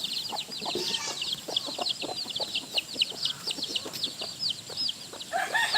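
Chickens peeping and clucking: many short, high chirps a few times a second, with scattered clucks and a short lower call near the end.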